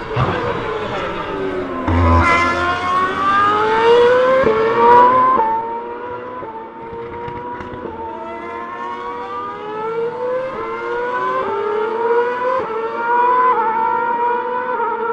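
2013 Formula 1 cars' 2.4-litre V8 engines at high revs under hard acceleration. One car comes through loud, its pitch climbing and cut by quick upshifts, loudest about four to five seconds in. More cars follow, each running up through the gears in a rising note with a small drop at every shift.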